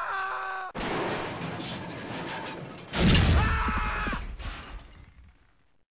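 Two crashes: one about a second in that dies away slowly, then a louder one about three seconds in, with a few falling tones ringing over it as it fades.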